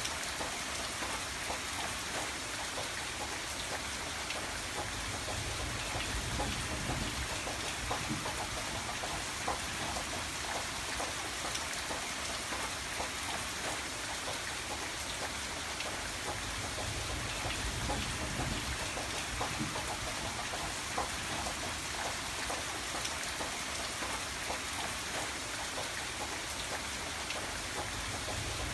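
Steady rain falling on a surface, a dense even hiss with many individual drops ticking through it.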